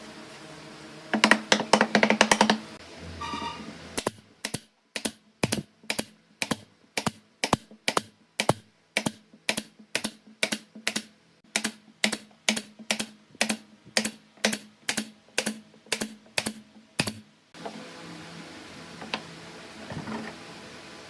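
A loud burst of rapid clicks and knocks about a second in, then a pneumatic brad nailer firing again and again into pine strips: about three sharp shots a second, evenly spaced, for some thirteen seconds, stopping near the end.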